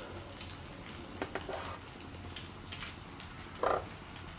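Egg omelette with sweet potato tops frying in a pan: light sizzling with scattered crackles. A short pitched call about three and a half seconds in.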